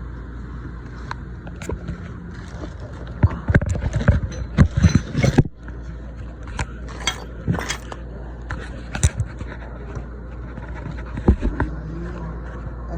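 Hard parts and tools being handled during assembly work: a rapid flurry of knocks, clicks and scrapes about three seconds in, then scattered single clicks.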